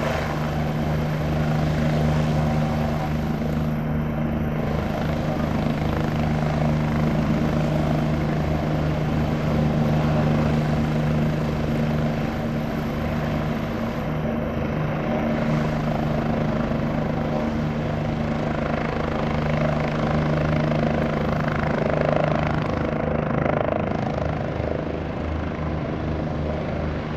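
Bell 429 helicopter running steadily: the hum of its twin Pratt & Whitney PW207D turboshaft engines over the fast, even beat of its four-blade main rotor.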